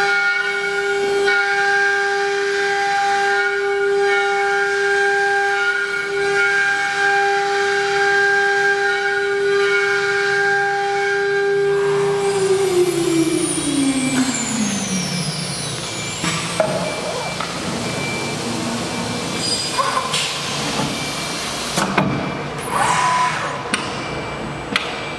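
A 9 kW CNC wood router spindle whines at a steady high pitch, then about twelve seconds in winds down with a falling pitch as it stops. Clunks and short bursts of air hiss follow as the automatic tool changer's carousel swings in to the spindle.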